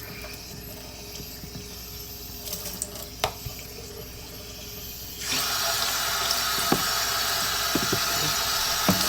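Running water, like a tap, starts suddenly about five seconds in and keeps flowing as a steady hiss. A single click comes a little before it.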